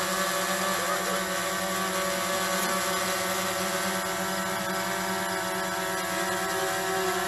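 DJI Phantom 3 Professional quadcopter hovering, its four propellers giving a steady buzz made of several held pitches.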